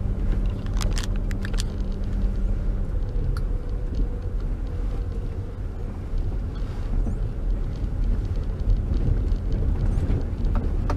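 Car driving on an unpaved dirt road: a steady low rumble of engine and tyres, with a few sharp clicks and knocks about a second in.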